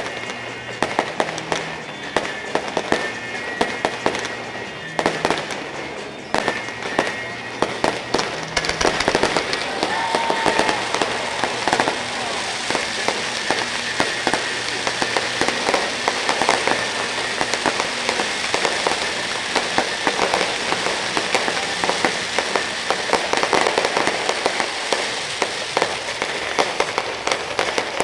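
Aerial fireworks display: repeated sharp bangs of shells bursting, then from about nine seconds in a dense, continuous crackling barrage with bangs running through it.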